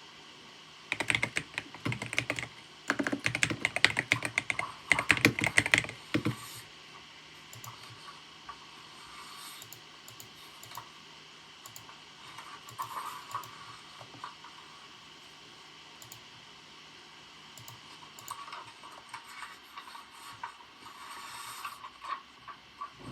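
Typing on a computer keyboard: a fast, loud run of keystrokes from about a second in to about six seconds, then lighter, intermittent typing with another cluster of keystrokes near the end.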